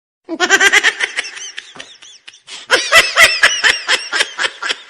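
Laughing sound effect: high-pitched laughter in rapid, repeated bursts, in two runs with a short break about two seconds in.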